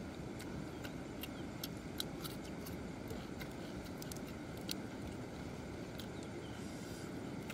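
A person chewing close to the microphone: scattered, irregular sharp mouth clicks and smacks over a steady low rumble.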